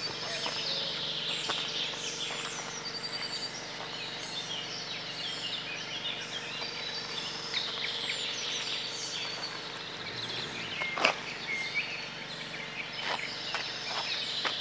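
Many birds chirping and twittering, short overlapping calls and trills throughout, with a few sharp clicks about eleven and thirteen seconds in.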